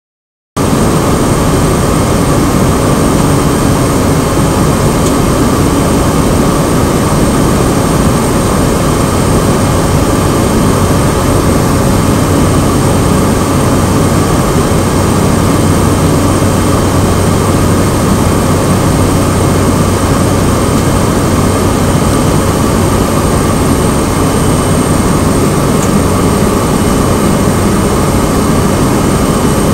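Cessna 208 Grand Caravan's PT6A turboprop engine and propeller running steadily in flight, heard loud from inside the cockpit: a dense rushing drone with a steady low hum and a thin high whine on top.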